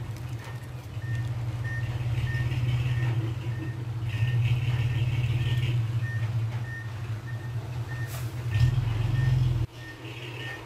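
Loaded dump truck reversing: its diesel engine runs with a steady low rumble while the reversing beeper sounds a short high beep about twice a second. Near the end the engine grows louder briefly, then its note drops sharply while the beeping continues.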